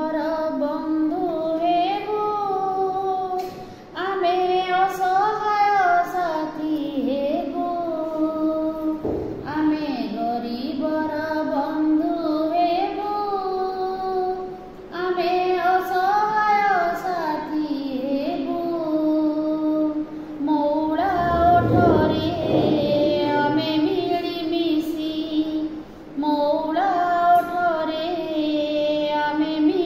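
A woman singing a song in Odia, solo and unaccompanied, in phrases of about five seconds with short breaks for breath between them.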